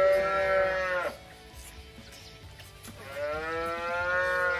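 Calf bawling twice: one long call that fades out about a second in, then another that begins about three seconds in, each an arched, drawn-out moo.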